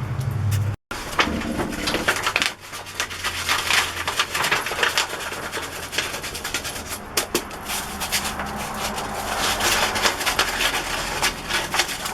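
Hand sanding shaped wood intarsia pieces with 150-grit sandpaper: quick, irregular scratchy strokes of paper rubbing over wood. The sound drops out for an instant just under a second in, and a faint low hum runs under the first two-thirds.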